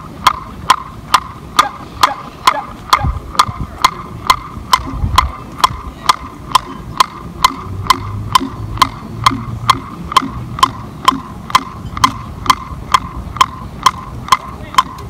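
A block struck with a drumstick, giving sharp, evenly spaced knocks a little over two a second: a steady tempo click keeping time for marching drill.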